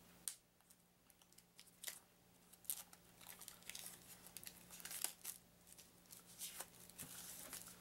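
Plastic wrapping crinkling and tearing in short, irregular scratchy crackles as a stack of game cards is worked out of it.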